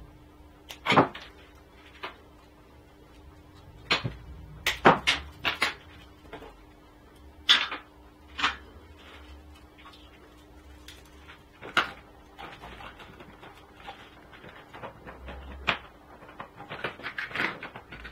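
Workbench handling noise: irregular sharp clicks and knocks of coax cable, connectors and tools against a metal rack-mount enclosure as the cabling is fitted, growing busier near the end. A faint steady hum runs underneath.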